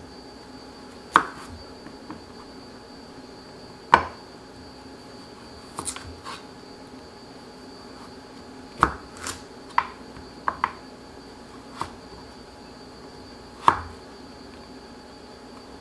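Chef's knife cutting a carrot on a wooden cutting board: about a dozen separate knocks of the blade on the board, spaced unevenly from a fraction of a second to a few seconds apart, some in quick pairs.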